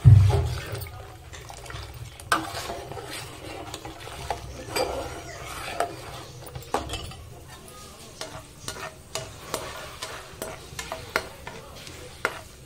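Cashews frying in a pan, with a spoon stirring and scraping against the pan in frequent small clicks over a soft sizzle; the cashews are just turning light brown. A heavy, low thump at the very start is the loudest sound.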